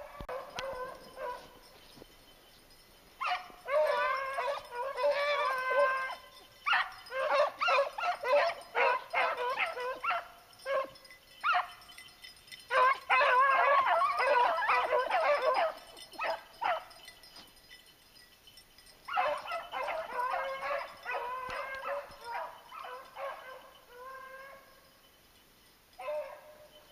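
Hunting hounds baying on a hare's track: bursts of several seconds of rapid, overlapping bawls, with short quiet gaps in between.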